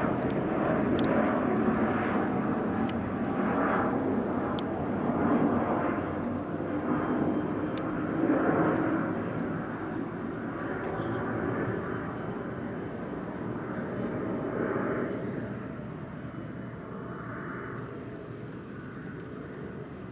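Jet noise from a Boeing 737-400's two CFM56-3 turbofan engines as the airliner flies overhead and away. The sound swells and eases in waves and grows steadily fainter through the second half.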